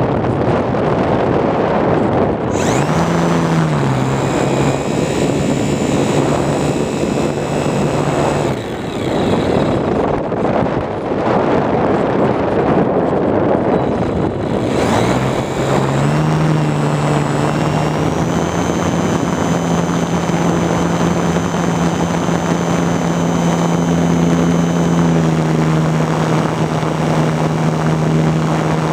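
Radio-controlled model airplane's motor and propeller running under heavy wind rush over the microphone. The motor's hum comes in a couple of seconds in, drops out for several seconds near the middle leaving only wind, then comes back and runs steadily, its pitch stepping up and down.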